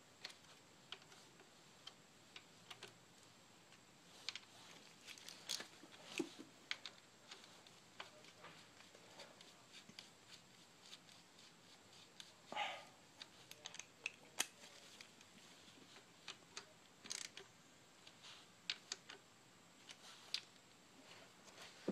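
Faint, scattered light clicks and a brief rustle about halfway through, from a Saab B235R's timing chain and plastic chain guides being handled and fitted by a gloved hand.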